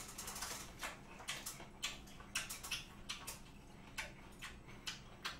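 Close-miked chewing of a mouthful of raw beef: irregular wet clicks and smacks of the mouth, about two or three a second.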